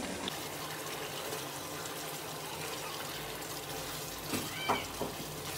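Beef tripe and potato curry simmering and sizzling in a pan, with a steady bubbling hiss. Near the end a wooden spatula stirs it, scraping the pan a few times.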